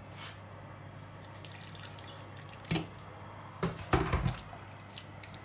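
Water being poured into a pot of stewing meats, with light splashing and dripping over a steady low hum; a single knock comes near the middle and a short cluster of knocks and clatter, the loudest sounds, about four seconds in.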